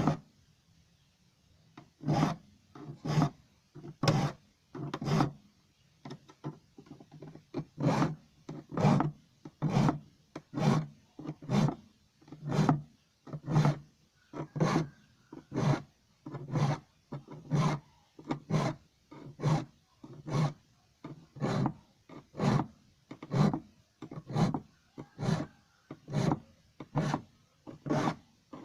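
A hand file rasping across the teeth of a wood hand saw, sharpening them in short, even strokes about one a second, starting about two seconds in.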